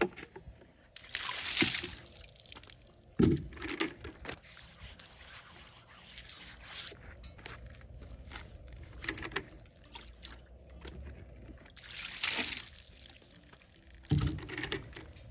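Water splashed onto a freshly sawn walnut slab in several short hissing bursts, with a couple of dull knocks.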